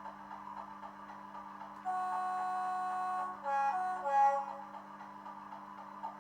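Hornby Class 50 model locomotive's TTS sound decoder playing through its small onboard speaker: the diesel engine idling as a steady hum. About two seconds in, the horn sounds one held blast of about a second and a half, followed by two short blasts at different pitches.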